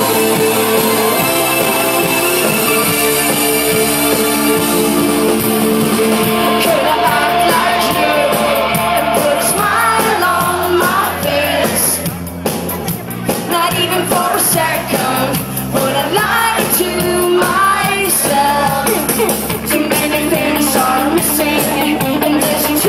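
Rock band playing live, held chords at first, with a woman's lead vocal coming in about ten seconds in.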